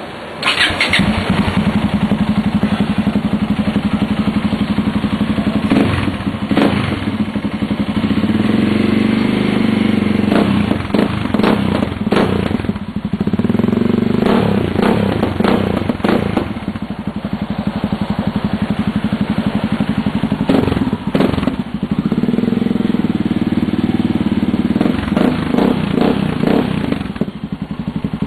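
Yamaha XT 660's single-cylinder four-stroke engine running through its exhaust, with a steady low idle broken several times by short bursts of revving.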